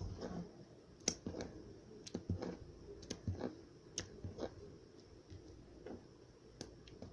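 Irregular soft clicks and squishes, about two a second, from slime and plastic slime containers being handled.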